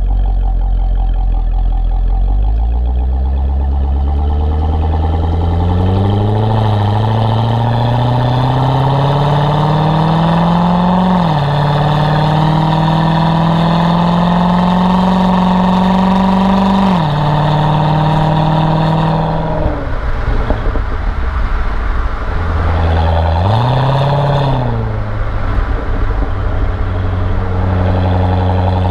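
Corvette C6's V8 with automatic transmission accelerating hard, its pitch climbing steadily, then dropping as the gearbox upshifts about eleven seconds in and again about seventeen seconds in. The engine then backs off, gives one short rise and fall in revs, and settles to a steady run.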